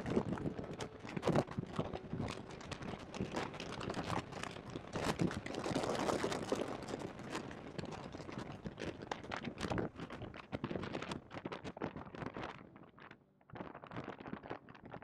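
Dense crackling, rubbing noise from a badly placed microphone in the cabin of a Porsche 991.2 GT3 at speed on track, with no clear engine tone coming through. The noise drops away briefly near the end, then returns.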